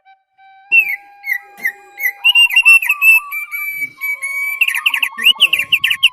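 Songbird singing: held whistled notes and short slurred phrases, breaking after about four and a half seconds into a fast run of repeated sharp chirps, the kind of 'gesekan' call played to get caged birds singing.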